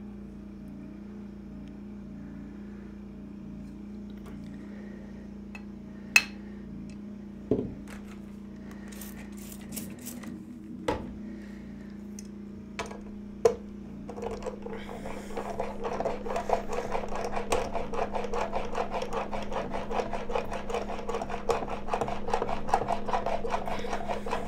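A few sharp clicks as a plane blade is handled and set in its honing guide, then from about halfway the blade is rubbed back and forth on a 16,000-grit Shapton glass stone in rapid, rhythmic strokes. A steady low hum runs underneath.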